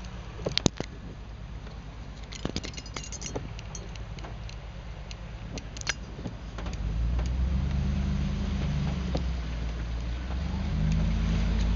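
Inside a car driving on wet city streets: steady low engine and road rumble with scattered sharp clicks and ticks in the first half. The rumble grows clearly louder about seven seconds in as the car gets moving, and again near the end.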